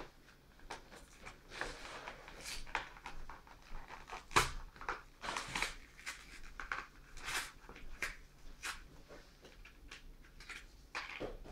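Foil wrapper of a Yu-Gi-Oh booster pack crinkling and tearing as it is opened by hand, in irregular crackly rustles and clicks, with one louder knock about four seconds in.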